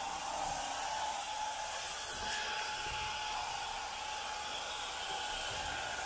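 Carpet-cleaning hot-water extraction wand working over carpet: a steady rushing hiss of vacuum suction and spray, with a thin steady whistle running underneath.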